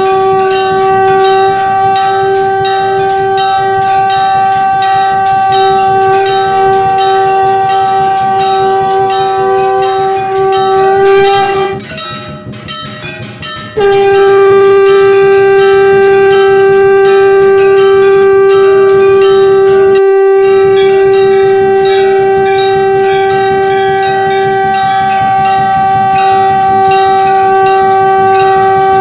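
Shankh (conch shell) blown in long, steady, sustained notes. It breaks off for about two seconds near the middle, then sounds again.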